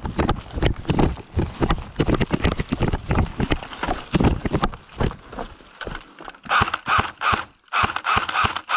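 Running footsteps with thudding impacts of about three to four a second, with gear jostling on the body. For the last two seconds or so the thudding gives way to a few rustling, scraping bursts.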